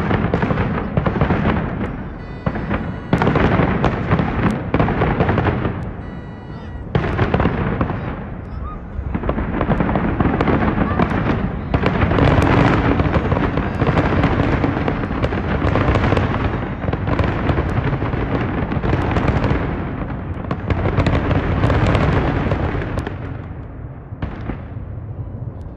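Fireworks going off: aerial shells banging and crackling, at first as separate bangs a second or so apart, then in a dense, nearly unbroken barrage through the middle that eases off near the end.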